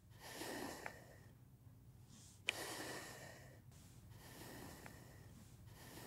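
Pet groom tool brushed through a dog's thick coat in two long, soft swishing strokes; the second stroke begins with a sharp click.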